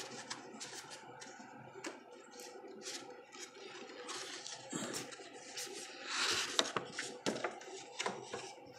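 Rustling and light clicks of a paper poster being handled, with a louder rustle about six seconds in.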